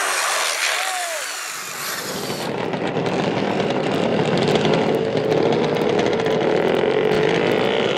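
An electric RC buggy spraying loose dirt for about a second and a half, then a loud motor-like buzz, like a small engine, that rises slowly in pitch near the end.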